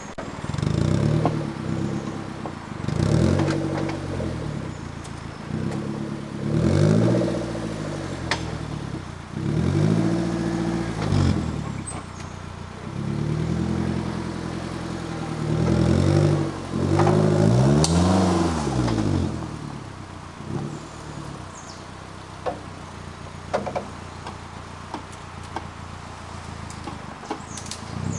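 Suzuki Jimny JB43 engine revving in repeated surges, its pitch climbing and falling with each push of the throttle, as the lifted 4x4 crawls over an axle-crossing obstacle. After about 20 s it settles to a low steady run, with a few sharp knocks and clatters.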